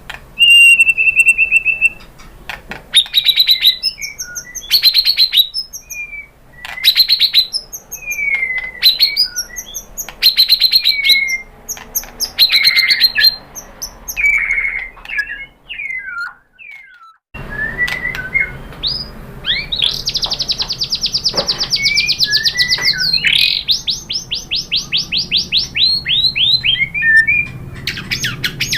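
White-rumped shama singing: a run of loud, varied whistled phrases that sweep up and down in pitch, broken by a short gap about two-thirds through. After the gap come fast buzzy rattling trills.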